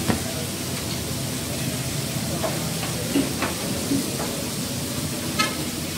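Steady hiss of a smoking charcoal grill with food cooking on it, with a few light clicks and knocks.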